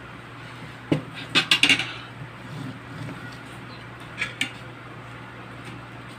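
Tableware clattering: a serving bowl knocks down onto the table about a second in, followed by a quick run of spoon and fork clinks against a plate, then two lighter clinks of the spoon and fork on the plate a few seconds later.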